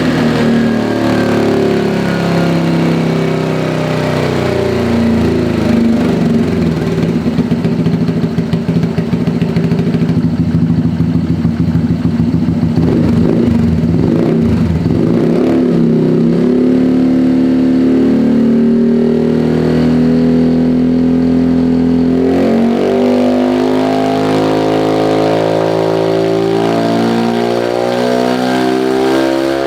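Single-cylinder automatic scooter engine running loud through an aftermarket EvoX ADB valved exhaust, revved repeatedly: held fairly steady at first, a stretch of rapid pulsing in the middle, then quick rises and falls in revs in the later part.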